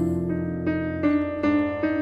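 Music: a piano playing a slow melody, a new note about every half second.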